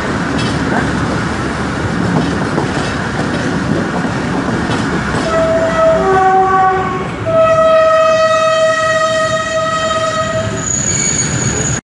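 Passenger train running on the rails, heard from an open carriage window, with a steady rumble and clatter. About five seconds in, the locomotive horn sounds two short notes at different pitches, then one long blast of about three seconds; a thin high tone follows near the end.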